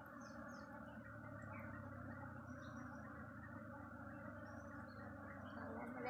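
Steady low hum of a mass of honeybees crawling and flying about their opened nest, with a few faint bird chirps over it.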